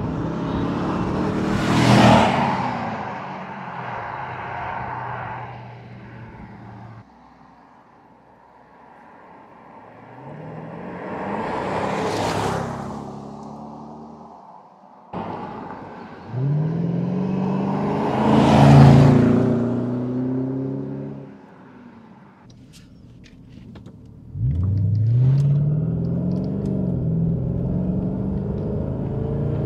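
1996 Jaguar XK8's V8 through an Adamesh Stage 1 sports exhaust, accelerating hard past the roadside three times, each pass swelling and then fading. A few sharp clicks follow. Near the end the same engine is heard from inside the cabin, rising in pitch as the car pulls away.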